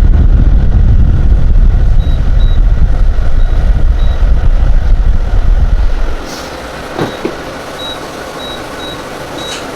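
Cold air from a portable air conditioner's outlet blowing onto the microphone, a heavy low wind rumble that stops about six seconds in, leaving the steady whir of the unit's fan. Faint short high beeps repeat in two stretches.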